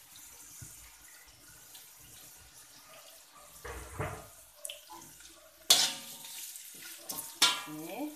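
Food sizzling in oil in a steel wok while a metal spatula stirs and scrapes it, with two loud clanks of the spatula against the wok about two seconds apart near the end.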